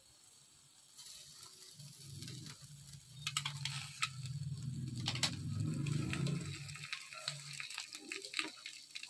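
Light sizzling from a hot pan of chicken tikka pieces. Metal tongs click sharply against the pan and foil a few times as a lit charcoal is set in a foil cup. A low steady hum runs through the middle and stops near the end.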